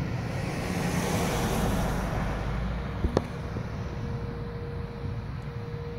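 A car driving past on the road: tyre and engine noise swells over the first two seconds and fades away, over a steady low rumble, with a sharp click about three seconds in.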